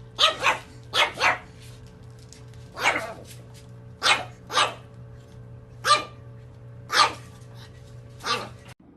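A dog barking repeatedly, about ten barks, mostly in quick pairs with pauses between, over a steady low hum.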